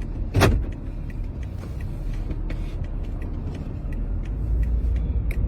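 Steady low rumble of a car heard from inside the cabin, with one sharp knock about half a second in and a few faint ticks.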